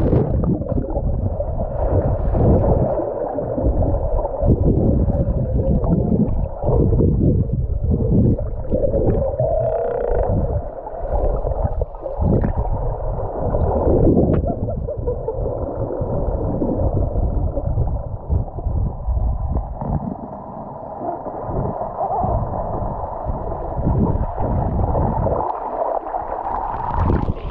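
Muffled underwater sound through a camera's waterproof housing: irregular low rushes and knocks of moving water and gurgling as a freediver swims and kicks with fins.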